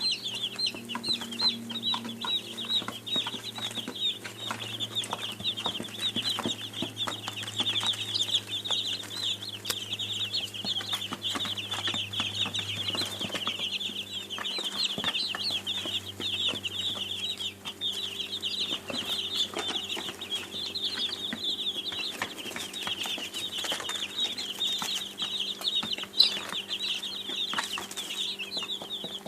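A group of baby chicks peeping continuously, many short high cheeps overlapping, with a steady low hum underneath.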